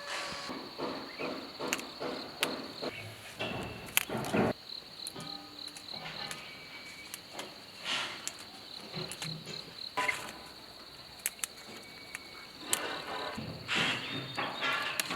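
An insect's steady high trill that breaks into separate evenly spaced chirps at times, with scattered knocks and clicks over it. The knocks come in a quick run in the first few seconds and are loudest around the middle.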